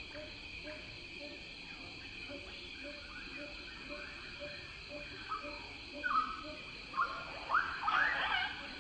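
Riverside wildlife ambience: a steady high insect drone, with a regular run of short low notes, about two or three a second, from a calling animal. From about six seconds in, several loud, sharp calls rise and fall, the loudest at the end.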